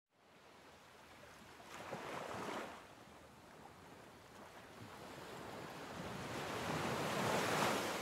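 Sea waves washing, in two swells: a short surge about two seconds in and a longer one that builds to its loudest near the end.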